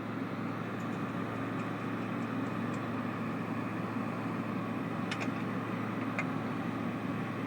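A steady, even machine hum with a constant low drone, and a couple of faint clicks about five and six seconds in.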